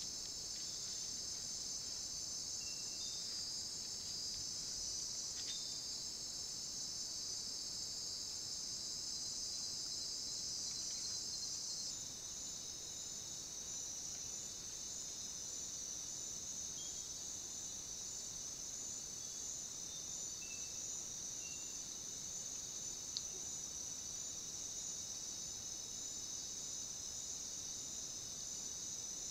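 Night-time insect chorus of crickets, a steady high-pitched trilling that fills the background without pause. Its texture shifts abruptly about twelve seconds in, and a single faint click comes later.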